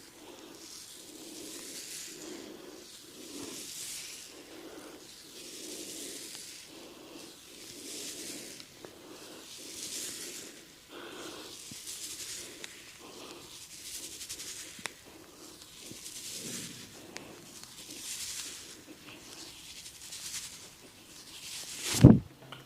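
Rhythmic swishing of hands stroking and rubbing oiled skin during a neck and shoulder massage, a stroke about every second or two. Near the end comes a single loud smack.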